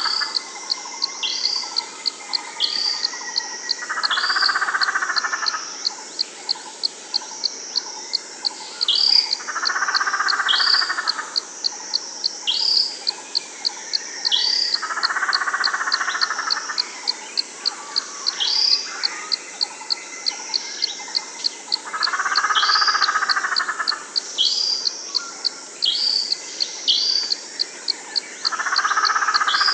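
A chorus of animal calls: a steady run of high clicks and short dropping chirps, with a longer, lower trill of about a second and a half coming back roughly every six seconds.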